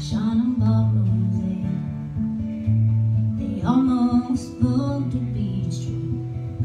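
Solo acoustic guitar strummed live, with a woman's singing voice coming in twice over it.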